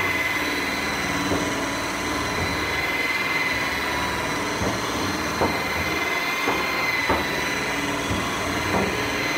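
Corded rotary buffer running steadily at a low speed setting, its motor giving a steady high whine while the polishing pad rubs polish across an oxidized aluminum aircraft panel. A few short, light knocks come at irregular moments.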